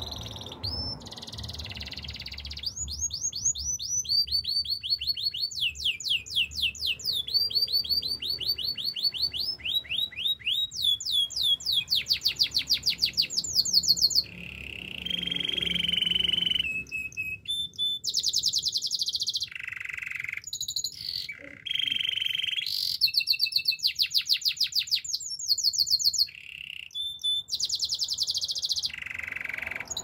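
Domestic canary singing a long, high-pitched song of rapid trills: each phrase is a fast run of the same note repeated many times, many of them falling in pitch, and the phrases change every second or two with short breaks between them.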